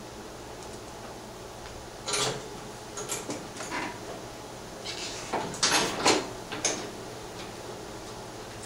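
Clunks, scrapes and rattles of someone climbing onto a garden tractor's seat and handling its metal levers and steering wheel, in short bursts about two, three to four, and five to seven seconds in, over a faint steady hum. The loudest clatter comes near six seconds.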